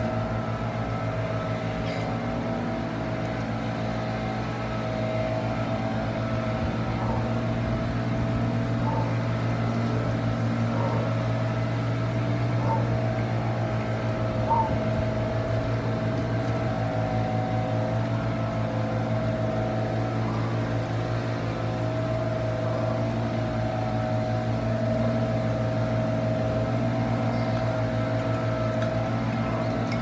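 A steady low mechanical drone from a running motor, with a fainter steady hum above it, unchanged throughout. There is a single brief tap about halfway through.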